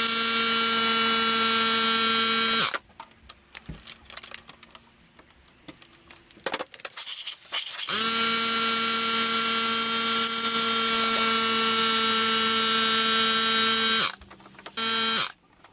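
Electric power tool motor running at a steady pitch, switched on three times: a run of a few seconds, a pause with light clicks of handling, a longer run of about six seconds, then a brief burst near the end.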